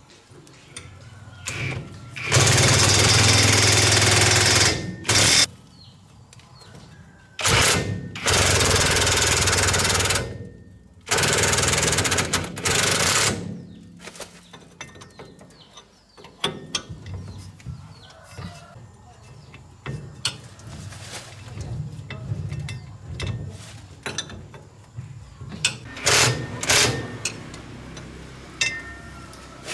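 Cordless impact wrench hammering at the driveshaft flange bolts of a rickshaw's rear axle, in about five bursts over the first half, the longest two to three seconds each. After that come quieter clinks and clicks of hand tools on metal, with two short sharp bursts near the end.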